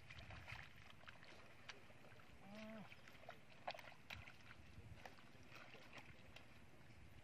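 Faint, scattered squelching and clicking of footsteps in wet mud, with a short low tone about two and a half seconds in.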